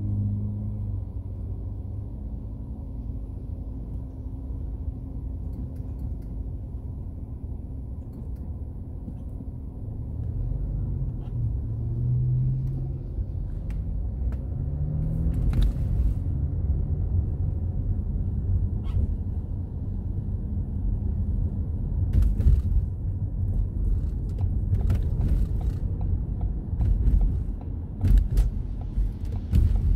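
Car engine and road rumble inside the cabin: the engine runs low while stopped, then its note climbs as the car pulls away and accelerates. A series of short knocks and thumps comes through in the second half.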